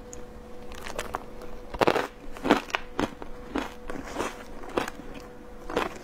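Shaved ice dusted with matcha powder crunching as it is chewed close to the microphone, in irregular sharp crunches about twice a second. A faint steady hum runs underneath.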